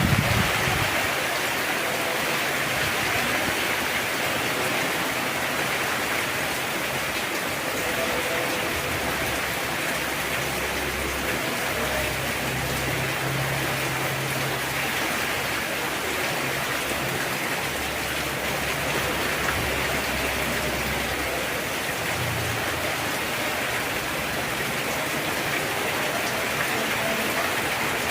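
Heavy rain falling steadily, a constant even hiss of downpour.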